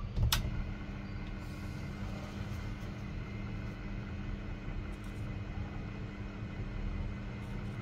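Proxxon mini lathe running steadily with its belts set to the lowest speed, a long stainless steel bar spinning in the chuck: a steady low hum. A single sharp click just after the start.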